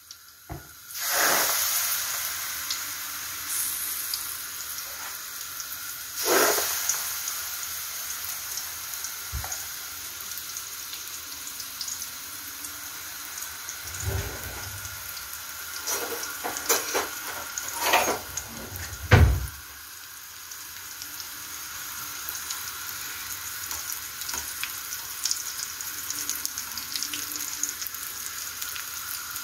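Nettle batter fritters (mücver) frying in a pot of hot oil, a steady sizzle throughout. There are a few louder surges of sizzling and some sharp knocks, the loudest about nineteen seconds in.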